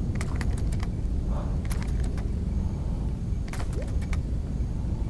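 Steady low rumble with scattered, irregular sharp clicks and ticks as a lure is worked with short rod-tip twitches from a boat.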